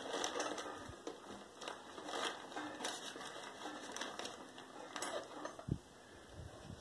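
Newspaper and torn cardboard crumpling and crinkling as they are pushed down by hand into a paper log press mould, in irregular crackles that die down near the end.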